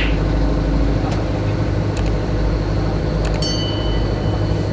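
A steady low rumble like a large engine running, with a few light clicks and a high ringing tone that starts about three and a half seconds in and holds.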